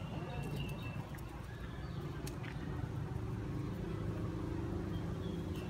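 A steady low rumble with scattered small clicks and scuffs from puppies wrestling a kitten on tiled paving. Brief faint high chirps come and go.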